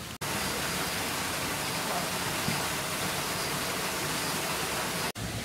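Steady, even rushing noise, broken by a brief drop to silence just after the start and another near the end.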